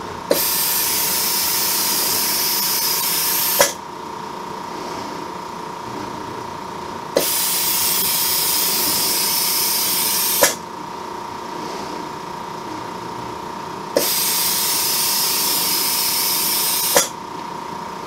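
A robot arm's vacuum suction gripper hissing three times, each for about three seconds, with a click as the suction switches on and another as it releases: the vacuum holds each of three candy bars from pick to place on the stack.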